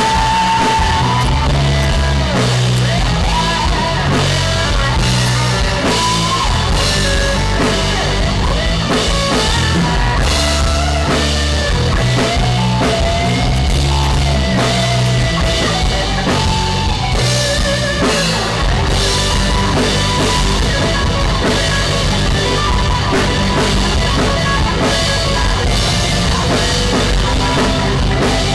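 Loud rock music from a band with drum kit and guitar, the drums driving a steady beat under a melody line that bends in pitch.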